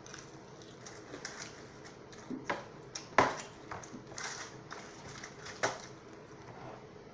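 Eating and handling of a fried-chicken meal close to the microphone: a few short, sharp clicks and knocks, the loudest about three seconds in.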